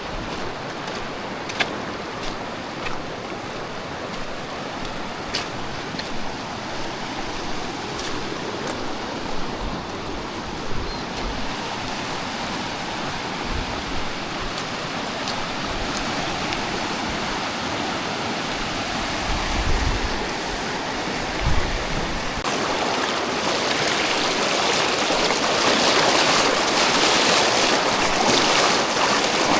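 Rushing mountain river, a steady hiss of water that grows louder over the last several seconds. A few sharp clicks come in the first ten seconds, and low thumps come about two thirds of the way through.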